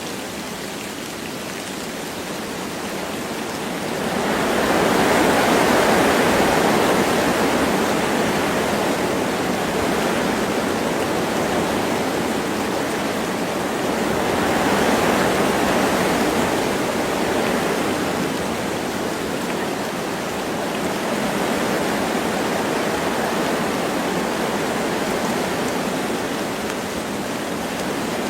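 Wind blowing through forest trees with light rain, a steady rushing that swells in gusts about four seconds in and again around fifteen seconds.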